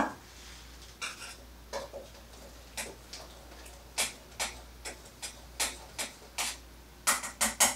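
A metal spoon stirring dried herb into hot water inside a stainless steel electric kettle, clinking against its sides in light, irregular taps about one or two a second, with a quicker run of taps near the end.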